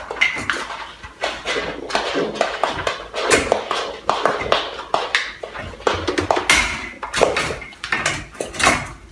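Goat eating corn: quick, irregular crunching and clicking.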